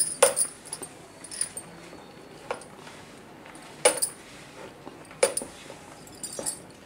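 Hand mixing flour for samosa dough in a plastic bowl, with about six light clicks or knocks, roughly one every second, as the hand and bowl move.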